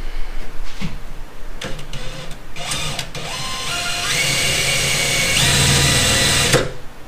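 Cordless drill boring an eighth-inch pilot hole through the sheet-metal trunk lid. After a few light knocks, the motor whines from about three seconds in, its pitch stepping upward, and it cuts off suddenly near the end.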